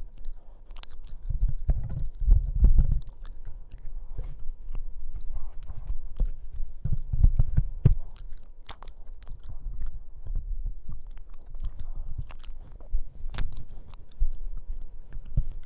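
Boston Terrier puppy chewing and biting on a black corded object: irregular sharp clicks of teeth with low thumps as the object is knocked about.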